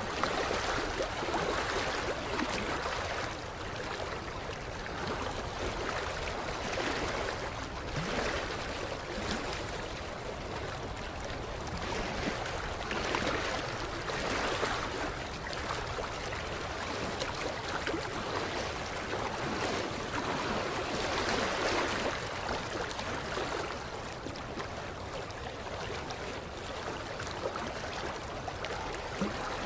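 Creek water lapping against the shoreline, a steady wash that swells and eases every few seconds.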